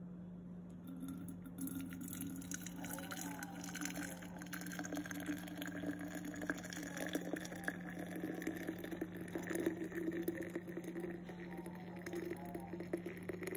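Hot Arabic coffee poured in a steady stream from a stainless kettle through a mesh strainer into a thermos flask, splashing and trickling, its pitch rising slowly as the flask fills. A steady low hum runs underneath.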